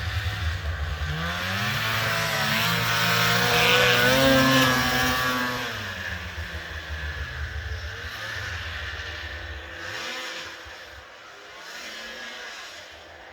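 Snowmobile two-stroke engine passing by: its pitch and loudness rise to a peak about four seconds in, then drop away and fade out by about ten seconds.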